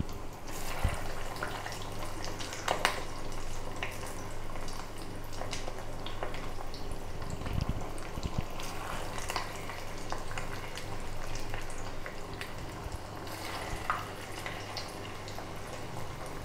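Fish-roe and gram-flour fritter batter frying in hot oil in a kadai: a steady sizzle with sharp crackles and pops scattered through it as fresh portions of batter go into the oil.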